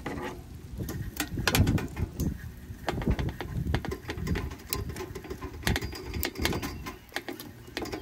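Hot oil crackling and popping irregularly around whole small fish frying in a shallow tray, with wooden chopsticks clicking against the fish and pan as they are turned. A low wind rumble on the microphone runs underneath.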